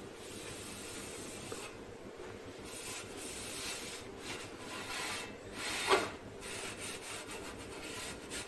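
Rubbing and scraping as a hand works on the metal frame and parts around the fuser roller of a Xerox wide-format printer, in repeated strokes, with a short louder squeak about six seconds in.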